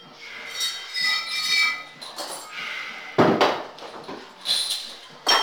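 Metal clinking and clanking as a dip belt's chain and its 35 lb weight plate are handled and unhooked, with one heavy clank about three seconds in and a sharper one near the end.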